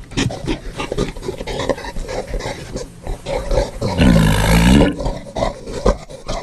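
Creature sound effect for the 'andrewtherium': a run of short, rough, irregular animal sounds, then one loud roar about four seconds in, lasting about a second.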